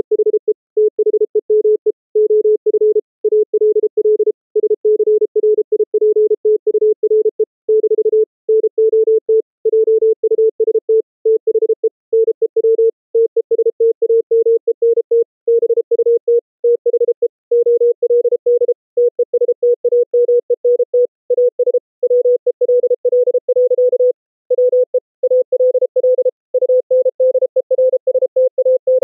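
A Morse code (CW) tone keyed on and off. It is a pure sine tone with soft raised-cosine edges, the output of a software bandpass filter and mixer. Its pitch creeps slowly upward as the mixer frequency is turned up.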